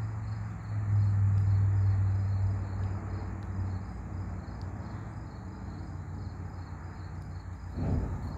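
Crickets chirping in a steady pulsing rhythm over a low steady hum that is strongest in the first few seconds. Near the end comes a brief whoosh as a line of flames catches on the ground.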